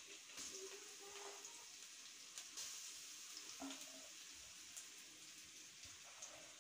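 Sliced onion and green chillies frying in oil in a metal wok, a faint steady sizzle, with a few light clicks and scrapes of the spatula.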